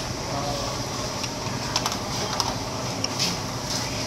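Steady background noise of a hawker food stall, with a few light clinks of spoons and bowls about two to three seconds in.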